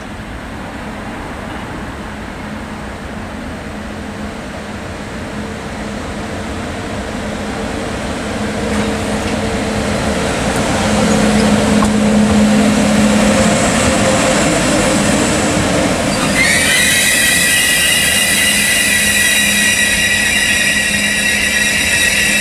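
ÖBB Taurus (Siemens ES64U2) electric locomotive approaching, its running noise and a low electrical hum growing louder. About sixteen seconds in, a high, steady squeal with several overtones sets in abruptly and holds. Near the end a second, lower squeal tone joins it.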